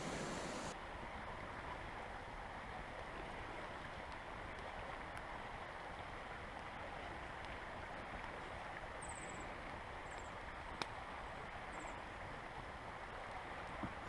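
Steady rushing of a shallow creek running over stones, with one sharp pop a little past ten seconds.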